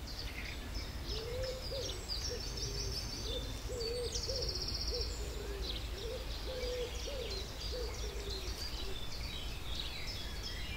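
Outdoor birdsong: a low hooting call repeated again and again, with small birds chirping higher up and a brief fast trill about four seconds in, over a steady low rumble.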